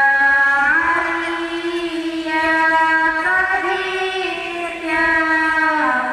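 A girl's solo voice chanting through a microphone in long, held melodic notes that slide up and down between pitches, in the melodic style of Quran recitation.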